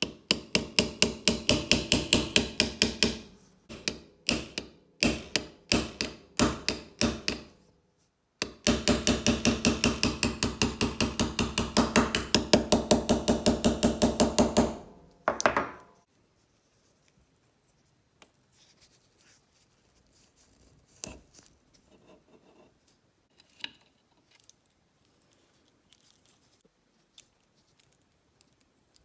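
Quick, even runs of tapping strikes, about five a second, with short breaks, ending about halfway through; faint scattered clicks follow.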